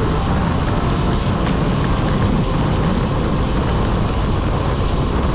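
Steady city street traffic noise with a heavy low rumble. Two faint clicks come at the start and about a second and a half in.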